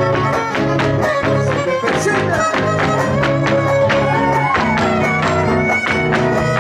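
Huapango huasteco played by a string trio, instrumental between sung verses: a violin melody with sliding notes over quick, even strumming of the huapanguera and jarana.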